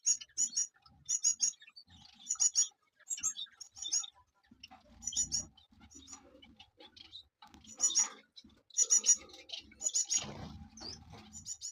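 Canaries chirping: short high call notes in quick clusters of two or three, about one cluster a second, with some low rustling in between.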